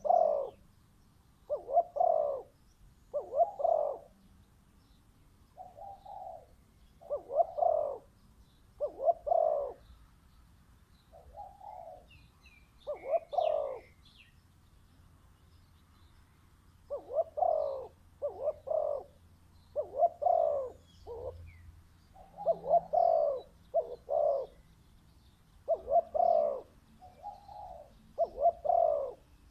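Spotted dove cooing, with repeated low phrases of two or three coos every few seconds. Some fainter coos come in between, and a few faint high chirps from small birds can be heard about halfway through.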